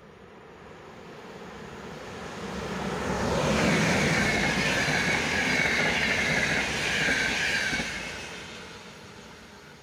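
Electric locomotive-hauled RegioJet passenger train with yellow coaches passing through a station: wheel-and-rail noise swells over about three seconds, holds loud for about four seconds with a high, wavering tone over the rumble, then fades as the last coaches go by.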